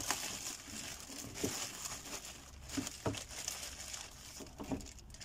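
Clear plastic packaging bag crinkling and rustling as it is handled and pulled open, with several short, sharper crackles.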